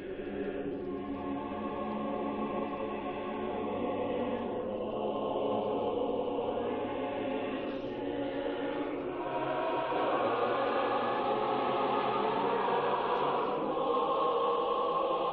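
Choir singing Orthodox liturgical chant in long, sustained chords, swelling and growing louder about ten seconds in.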